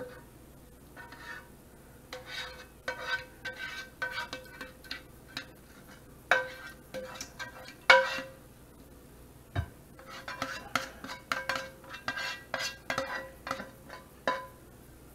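A metal spoon and spatula scraping and clinking against a metal saucepan while gravy is scooped out of it, a long run of light ringing clinks with two sharper knocks about six and eight seconds in.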